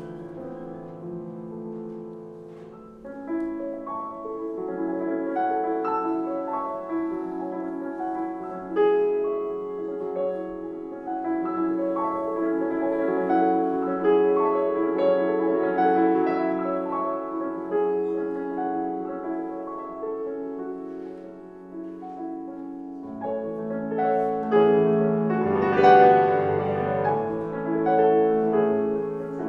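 Solo grand piano playing classical music: a quiet, sparse opening gives way to fuller chords, swelling to its loudest passage near the end.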